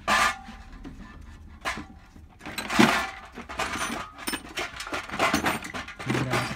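Small steel turbocharger fittings and an oil pipe clinking and scraping against a stainless steel tray as they are scrubbed with a brush in cleaning liquid. There is a sharp clink with a brief ring at the start and the heaviest scrubbing about three seconds in.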